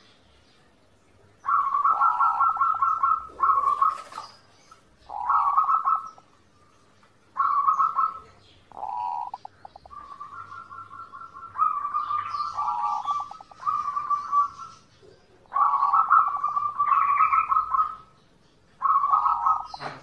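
Zebra dove (perkutut) singing: phrases of rapid, rolling coo notes, repeated again and again with short pauses between. The song starts about a second and a half in.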